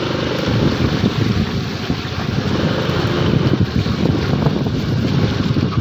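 Vespa scooter riding through a waterlogged lane: the engine is running under heavy, fluttering wind buffeting on the microphone, and the tyres are rolling through shallow standing water.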